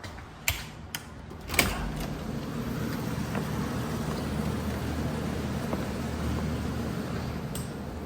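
Wall light switches clicking a few times, the loudest about a second and a half in, followed at once by a steady low hum of something that has just come on.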